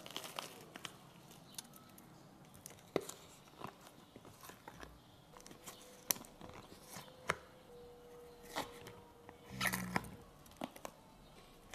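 Frozen food portions being pushed out of silicone molds: scattered faint clicks, small crunches and plastic-bag crinkles, with a louder crackly cluster near the end.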